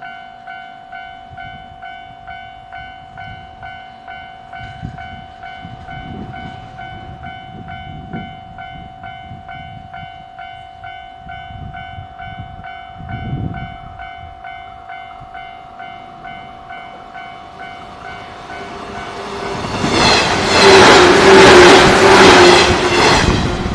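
Level-crossing warning alarm ringing steadily in an even repeating beat. Near the end a JR 113-series electric multiple-unit train passes close by, loud, its wheels clattering rhythmically over the rail joints.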